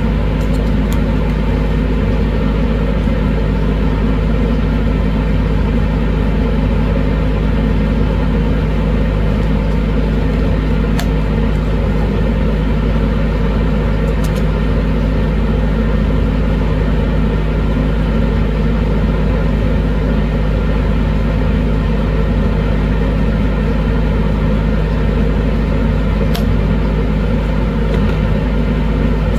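Laminar flow hood's blower running steadily, a loud even rush of air with a low hum.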